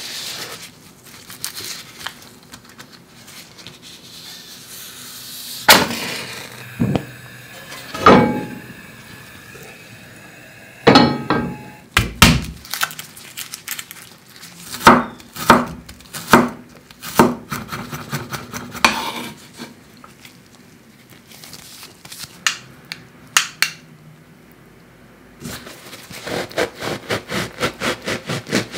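Close-up kitchen prep sounds: scattered knocks and clicks of ingredients and utensils handled on a wooden cutting board, and garlic being peeled. Near the end comes a quick even run of knife strokes sawing through a baguette, about four or five a second.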